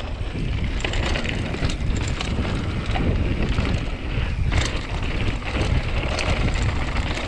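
Wind rushing over a GoPro Hero7's microphone during a fast mountain bike descent, with tyres rolling on a dirt trail and short rattling clicks from the bike over bumps.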